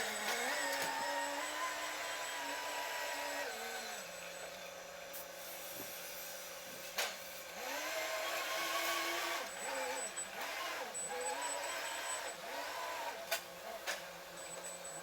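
A motor's pitched hum rising, holding for a few seconds and falling back several times, like an engine changing revs, with a couple of sharp clicks in the middle and near the end.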